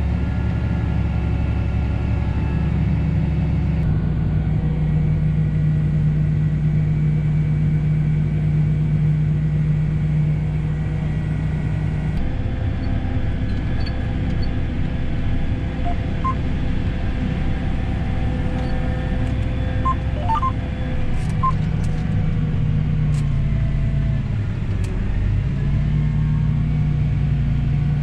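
Combine harvester running steadily while harvesting corn, a continuous engine and machinery hum. The pitch shifts about twelve seconds in and dips briefly near the end.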